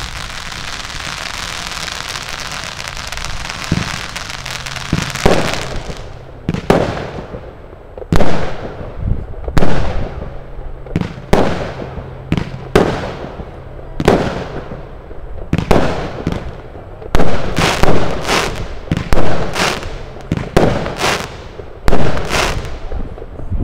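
Consumer firework battery (the Gao Status cake) firing: a few seconds of continuous crackling, then a rapid series of loud bangs about one a second, each trailing off in a short fading hiss.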